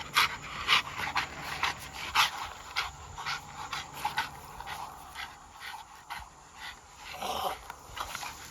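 American bully dogs panting hard and fast, about two to three breaths a second, out of breath from hot-weather exertion; the panting is loudest in the first few seconds and eases off after about four seconds.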